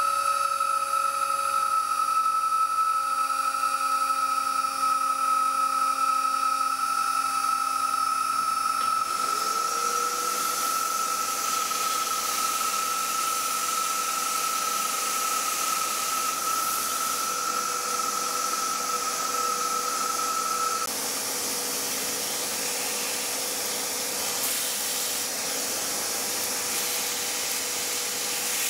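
Milling machine running with a steady high whine as an end mill cuts a slot in a metal block. About nine seconds in, a vacuum cleaner starts at the cutter, its motor rising in pitch and then running on with a steady rushing hiss as it sucks away the chips. The high whine stops about two thirds of the way through.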